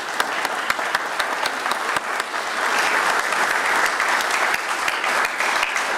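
Audience applauding, many hands clapping at once in a steady, even patter.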